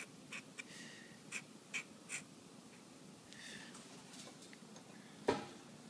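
Dip pen nib scratching on watercolor paper in short strokes as ink outlines are drawn, busiest in the first couple of seconds and fainter after. One sharp tap a little over five seconds in is the loudest sound.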